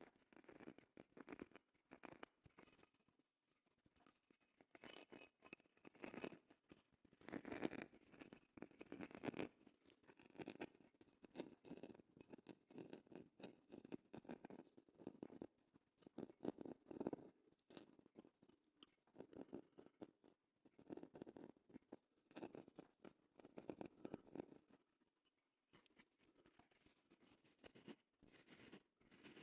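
Close-miked scratching and tapping on a shell: irregular clusters of quick scratches and clicks with short pauses between them.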